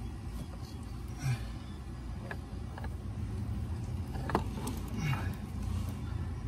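A few short plastic clicks and rattles as the ignition coil connectors and coil boots on a Ford 5.4L V8 are unplugged and worked loose by hand, over a steady low rumble.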